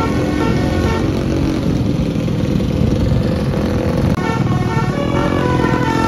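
Motorcycle engine running close by, with a tour bus's Basuri 'telolet' multi-tone horn playing a tune in the first second and again from about four seconds in.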